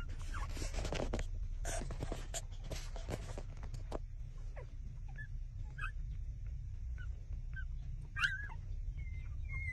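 Newborn puppies nursing on their mother: suckling and rustling noises through the first four seconds, then a few faint high squeaks, with a louder whimper about eight seconds in.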